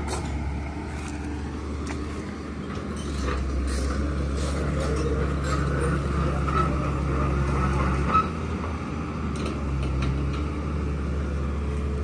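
Engine of a heavy vehicle running steadily with a low drone, with a single sharp click or knock about eight seconds in.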